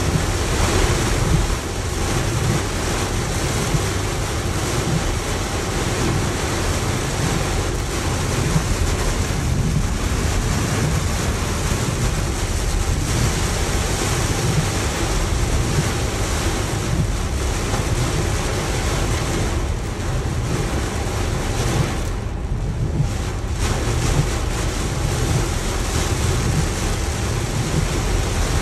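Heavy rain falling on a car's roof and windshield, heard from inside the cabin: a steady hiss over a low rumble. The hiss eases briefly about three-quarters of the way through.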